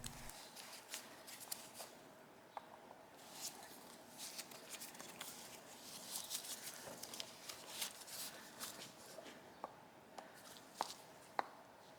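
Faint scraping and small sharp metal clicks of a screwdriver working at a seized screw on a Yamaha VMAX carburettor, with a couple of louder clicks near the end.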